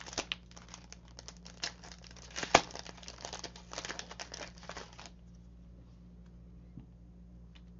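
Clear plastic packaging of paper flowers crinkling as it is handled: a rapid string of crackles with one sharper snap about two and a half seconds in, stopping about five seconds in.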